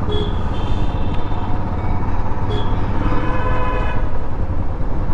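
Royal Enfield motorcycle engine running steadily while being ridden. Vehicle horns honk briefly near the start and again for about a second and a half in the middle.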